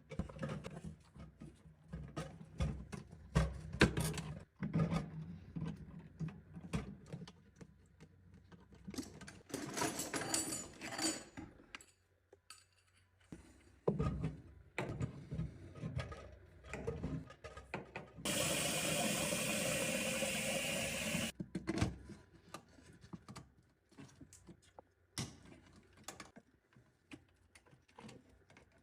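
Knocks and clattering of parts and tools being handled while a wall-hung toilet's concealed cistern is repaired. A steady hiss starts abruptly partway through, lasts about three seconds, and cuts off suddenly.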